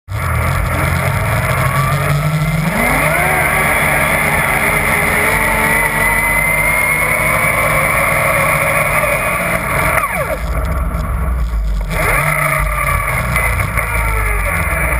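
Yamaha Nytro snowmobile's four-stroke three-cylinder engine accelerating hard about three seconds in and running at speed, then easing off around ten seconds in before revving up again.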